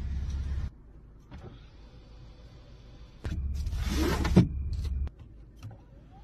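Electric sunroof motor of a Mercedes-Benz running and stopping under a second in, then running again for about two seconds from just past the middle, with one sharp clunk during the second run.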